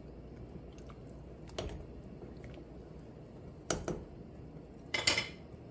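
A wooden spoon stirring water in a stainless-steel stockpot, knocking against the pot a few times, loudest about five seconds in, over a low steady hum.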